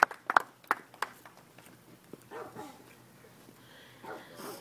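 Scattered hand claps of applause dying away in the first second, then two faint short whining sounds of bending pitch, about two and four seconds in.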